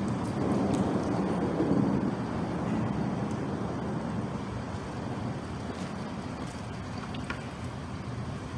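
Road traffic rumbling, with a vehicle passing that swells about a second in and fades by about three seconds, then a steady low hum of traffic.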